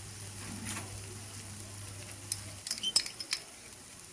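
Onion, capsicum and tomato masala sizzling gently in a pan over a low flame, with a low steady hum that stops about two-thirds of the way in. A few sharp clicks and taps follow.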